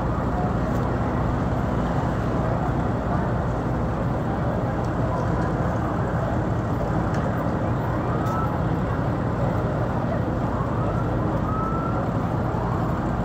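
Steady low rumble of fire engines running, with a faint siren wailing up and down a few times in the second half.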